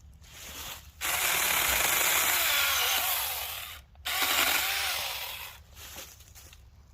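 Saker mini handheld electric chainsaw with a 4-inch bar, running in two bursts: about three seconds, then about a second and a half. Its pitch wavers as it cuts small branches.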